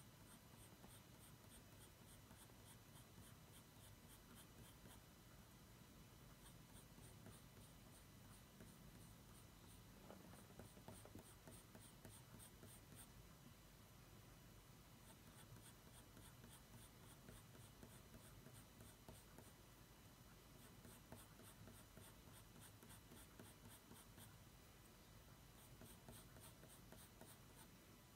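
Coloured pencil scratching faintly on drawing paper in runs of quick, short, even strokes, with brief pauses between the runs.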